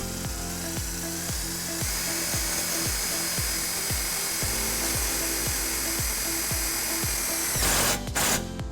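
Power drill driving self-tapping screws: the motor whine rises as it spins up, runs steadily for about seven and a half seconds, then stops and gives a few short bursts near the end.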